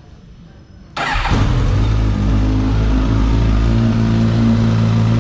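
2023 Suzuki GSX-S1000's 999 cc inline-four engine being started with a single press of the starter. It catches about a second in, flares briefly, and settles into a steady idle through an aftermarket LV slip-on exhaust.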